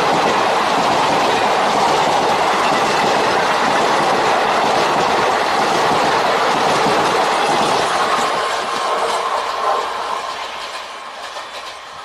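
Indian Railways ICF passenger coaches rushing past close by at speed, with steady wheel-on-rail noise. About two-thirds of the way through, the noise begins to fade as the end of the train goes by.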